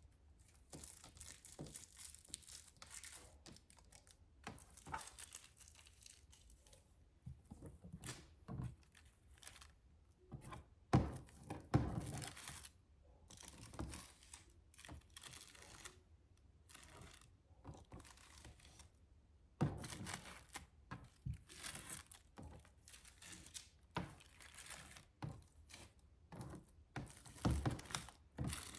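Hands working over a suitcase: irregular scratchy rubbing and rustling, with a few soft knocks in the middle and near the end.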